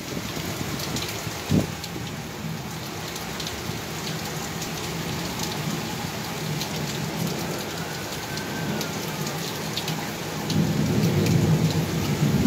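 Heavy rain pouring steadily, with sharp ticks of close drops. There is a single thump about one and a half seconds in, and a low rumble of thunder swells near the end.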